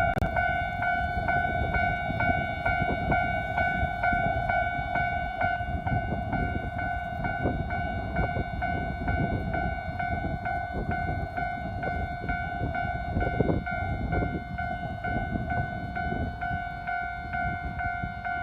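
Japanese railway level-crossing warning bell ringing in a steady, rapid beat of about two and a half strikes a second, while a Nankai Electric Railway train rumbles past.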